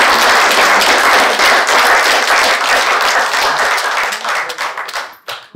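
Audience applauding, a dense patter of many hands clapping that thins out near the end and then cuts off abruptly.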